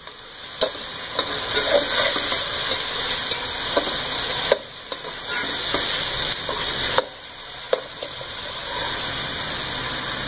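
Hot oil sizzling and bubbling in a steel cooking pot while a slotted metal spatula stirs it, with scattered clicks and scrapes of metal on the pot. The sizzle drops briefly twice, about halfway through and again a couple of seconds later.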